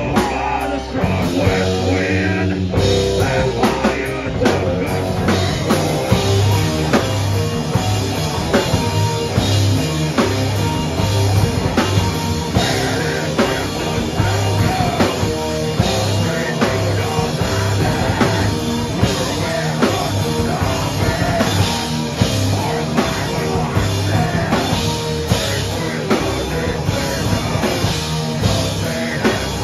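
A live punk-metal band playing loud: electric guitar and bass over a drum kit, with a vocalist singing into a microphone.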